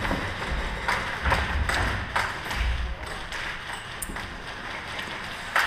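Scattered sharp clicks and taps of airsoft fire and BBs striking hard surfaces, with a few low thumps in the first few seconds.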